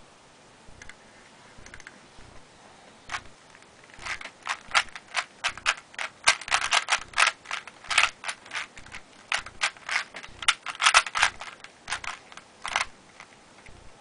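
3x3 Rubik's cube being turned fast in a speedsolve: the plastic layers clack as they snap round. A few scattered clicks come first, then a dense run of quick turns from about four seconds in that stops shortly before the end.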